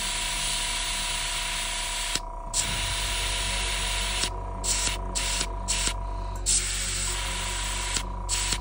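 Harder & Steenbeck Evolution airbrush hissing steadily as it sprays paint, with several short breaks where the air stops, over a faint steady hum.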